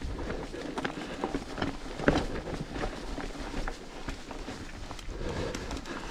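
Mountain bike descending a rough dirt trail: tyres rolling over dirt and stones with the chain and frame rattling in many short knocks, and one harder knock about two seconds in.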